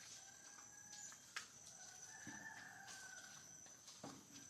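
Faint rooster crowing, one long call about two seconds in, over a steady high-pitched insect drone.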